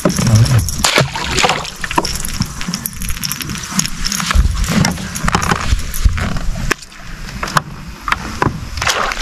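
Water splashing and sloshing against a boat, with scattered knocks and clatter of handling on the boat.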